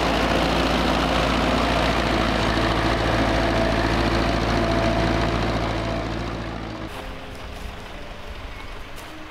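Wheeled farm tractor's diesel engine running steadily as it pulls a cultivator across a ploughed field, loud as it passes close, then fading away near the end.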